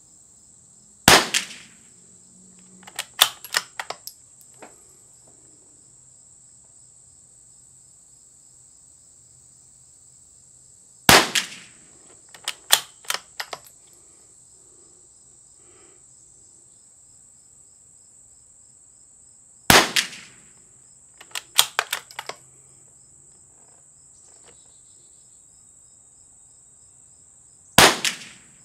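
CZ 455 bolt-action .22 LR rifle fired four times, one sharp shot every eight to ten seconds. Each shot is followed a second or two later by a quick run of metallic clicks as the bolt is worked to chamber the next round. A steady high insect drone sounds underneath.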